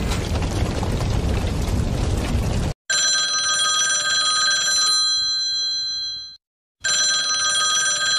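A steady rushing noise that cuts off under three seconds in, then a telephone ringing: an electronic ring of several steady tones lasting about three and a half seconds, a short pause, then a second ring. This is the call going out to the fire service.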